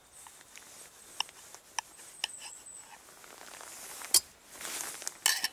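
Fork and knife cutting through a stack of syrup-soaked pancakes, with a few light clinks of metal against the dish and a sharper click about four seconds in, followed by soft wet rustling.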